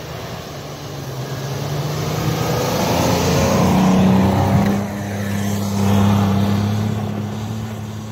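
Off-road 4x4 SUV engine revving hard as it ploughs through deep snow close by, with the hiss of snow thrown up by the tyres. It is loudest as it passes, about four seconds in, then holds a steadier note as it pulls away.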